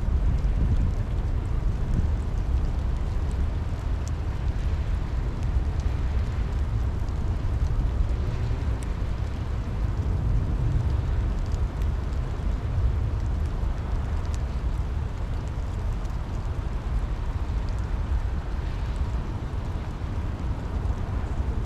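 Steady rain with faint scattered drop ticks over a constant deep rumble.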